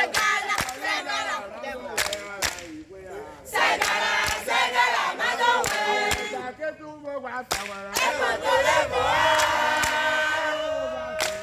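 A group of voices singing and shouting a chant together, with a few sharp percussive strikes now and then. A note is held steadily for about two seconds near the end.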